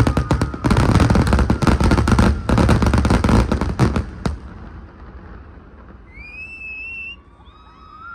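Fireworks finale: a dense barrage of bangs and crackling that cuts off about four seconds in. After it, a low hum of the crowd and a rising whistle near the end.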